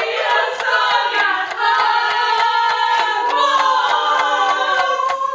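Several voices singing together in long held notes, with a steady click about four times a second.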